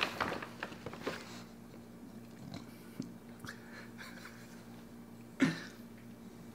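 English bulldog making quiet wet mouth sounds, scattered clicks and smacks of licking and chewing, likely at the balm just rubbed on her nose. A single short, louder sound comes about five and a half seconds in.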